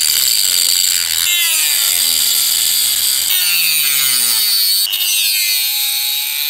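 Handheld rotary tool with a thin cut-off disc grinding into the glass dome of a Profoto B2 flash head: a loud, continuous gritty hiss over the motor's whine, which slides down in pitch several times.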